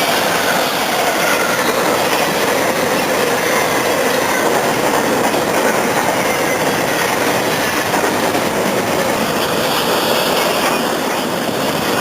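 Train cars rolling past close by: a loud, steady rolling noise of wheels on rail, with faint high-pitched wheel squeal coming and going.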